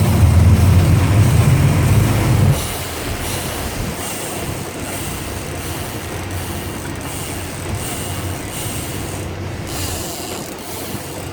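Boat engine rumbling heavily for about two and a half seconds, then easing off, with a steady rush of wind and water over the hull.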